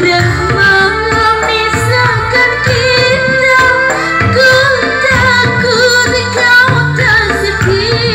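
Live dangdut music: an electronic keyboard band playing, with a woman singing the melody through microphones and a PA.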